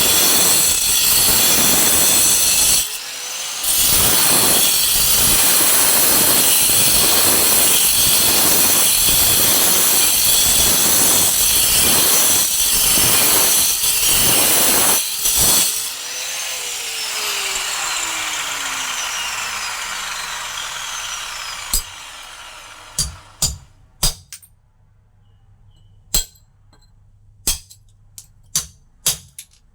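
A power tool grinding into stone, its noise pulsing in a steady rhythm, is switched off about 16 seconds in and spins down with a falling whine. Sharp knocks and taps follow near the end.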